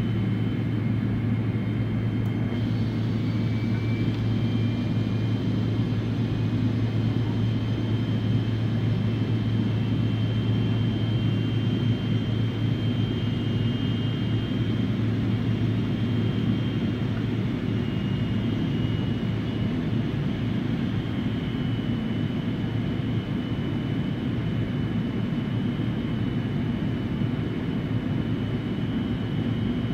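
Boeing 777-300ER's GE90 jet engines at low ground thrust, heard from inside the cabin: a steady low rumble with a faint high-pitched whine that wavers slightly in pitch.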